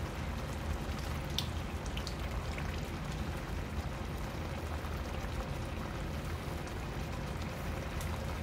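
Coconut-milk sauce simmering in an electric skillet: a steady bubbling hiss, with a few faint ticks as citrus juice is squeezed in over the fish.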